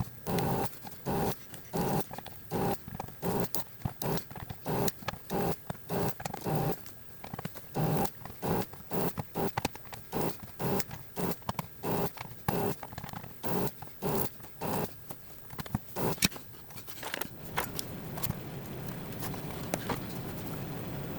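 A dog barking over and over, about two barks a second, stopping about 17 seconds in; after that only a steady low hum remains.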